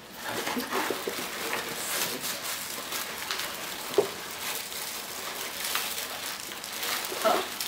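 Paper and packing material rustling and crinkling as hands rummage inside a cardboard box, with one sharp tap about four seconds in.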